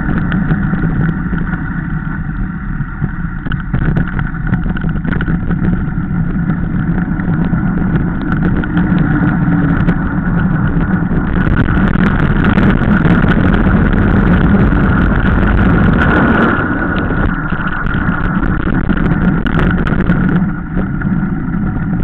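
Mountain bike descending fast on rough, broken tarmac: wind rushing over the camera microphone and tyres rumbling on the road surface, with frequent clattering knocks as the bike hits bumps. It grows a little louder for a few seconds in the middle.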